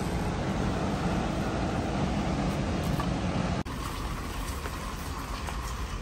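Supermarket background noise: a steady even rumble and hiss with no distinct events. It drops abruptly about three and a half seconds in to a quieter, thinner room sound.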